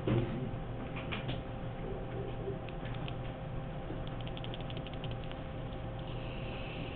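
Faint scattered clicks and a brief quick run of ticks, about ten a second, over a steady low room hum.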